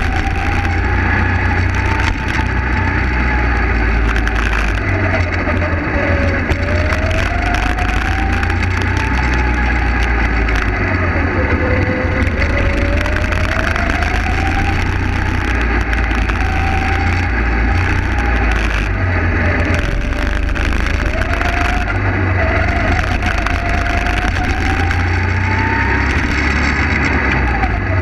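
Go-kart engine heard from on board the kart, its note climbing as the kart accelerates and dropping as it slows, several times over, with a heavy low rumble underneath.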